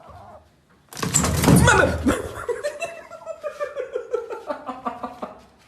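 A person bursts into loud laughter about a second in, then keeps laughing in a rapid run of pulses, about four a second, that slowly drop in pitch and fade out.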